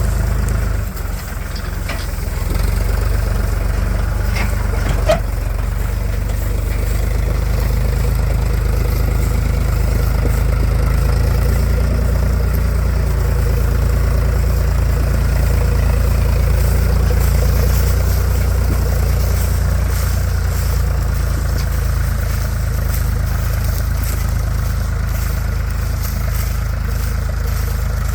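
Diesel engines of a backhoe loader and tractor running steadily during loading, with a short clank about five seconds in.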